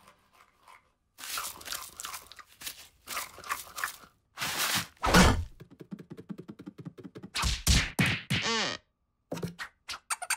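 Cartoon sound effects: a run of light taps and clicks, a heavy thunk about five seconds in, then a sound sliding in pitch around eight seconds.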